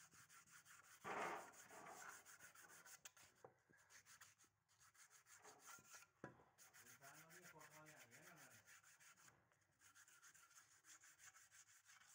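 Faint, repeated scratchy rubbing as a raw cast-iron sewing machine body is scrubbed by hand to clean off casting sand, with a louder burst of rubbing about a second in.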